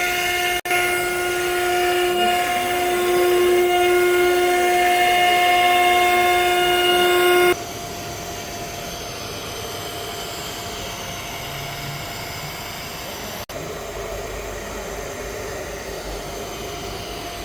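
CNC router spindle running with a steady high whine while engraving; about seven and a half seconds in the sound drops abruptly to a much quieter steady hum.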